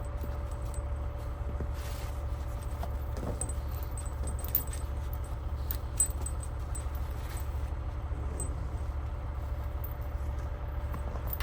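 Logging truck's diesel engine running with a steady low drone and a faint steady whine above it, with scattered light rattles and clicks.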